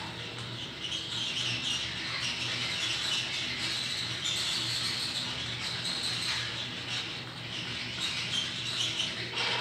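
Continuous high-pitched chattering of many small squeaks and chirps, like a group of small animals calling at once.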